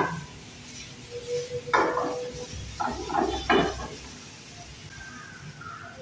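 Metal ladle stirring chicken pieces in a frying pan, knocking against the pan in a few sharp clinks around the middle, over a faint sizzle of frying.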